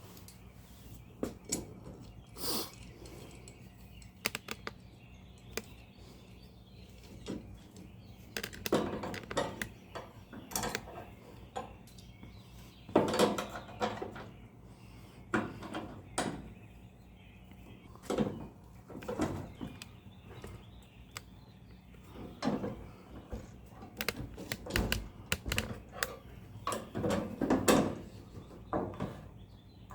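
Irregular metallic clicks, knocks and rattles of hand tools and hardware being worked, with a few longer stretches of scraping or ratcheting; fasteners being loosened with a wrench.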